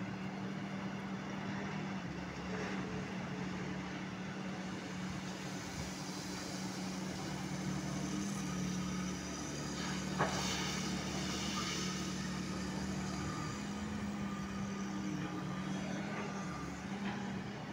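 LiuGong 926E hydraulic excavator's diesel engine running steadily under working load. About ten seconds in there is a sharp knock followed by a couple of seconds of rattling as the bucket works the crushed stone.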